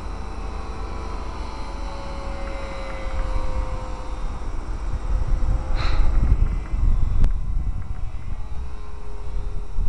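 Brushed electric motor and propeller of a Super Cub LP radio-controlled model plane whining faintly overhead, its pitch slowly falling as it flies by, over heavy wind rumble on the microphone. A brief high chirp sounds about six seconds in.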